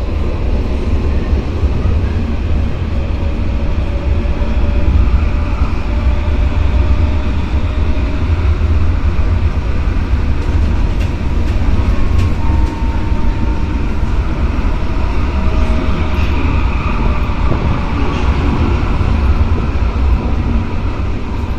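Tram train running at speed on plain track, heard from inside the driver's cab: a steady heavy rumble of wheels on rail, with a faint whine now and then that drifts in pitch.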